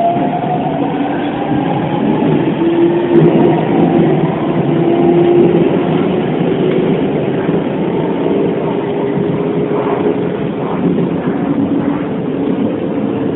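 Hokuso 7500 series electric train running, its Toyo Denki IGBT inverter motor tone rising and levelling off about a second in as the train gathers speed. Steady wheel and rail noise with a motor hum follows.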